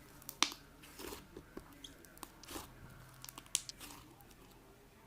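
Slime being squeezed and pressed by hand, giving an irregular string of sharp pops and crackles, two of them louder than the rest.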